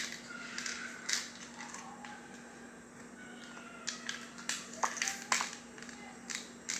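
Handheld garlic press crushing garlic cloves: faint squeaks from the press and a scattering of sharp clicks and crunches as the handles are squeezed, over a steady low hum.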